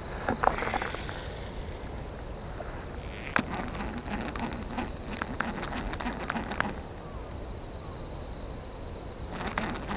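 A cast with a small vintage Daiwa Millionaire ST-1000 baitcasting reel: a swish and the spool spinning out in the first second. Then a sharp click a few seconds in and a run of irregular clicks from the reel and rod handling, with more clicks near the end.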